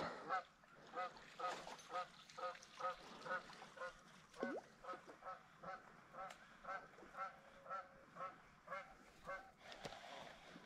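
A flock of geese honking: a faint, steady series of short calls, about two to three a second.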